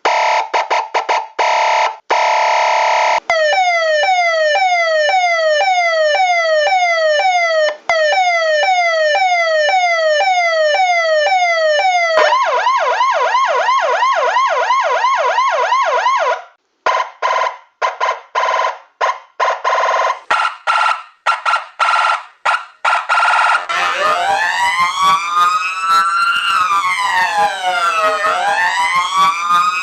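A run of different emergency-vehicle siren patterns cut one after another: fast pulses, then repeated quick falling sweeps, then a rapid warble, then a choppy on-off tone, and near the end a slow wail that rises and falls.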